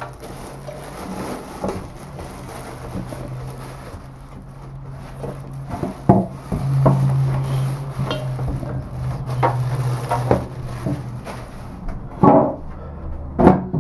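A slow cooker's metal lid and crock being handled: a few sharp knocks and clatters, mostly in the second half, over a low steady hum that stops a couple of seconds before the end.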